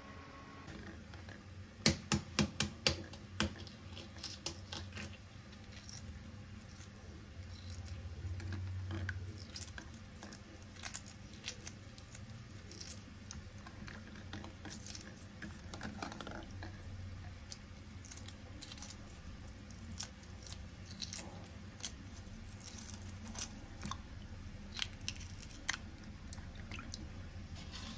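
Hard-boiled eggs being cracked and peeled by hand in a steel pot of water: a quick run of sharp cracking taps about two seconds in, then scattered small crackles and clicks as the shell breaks away.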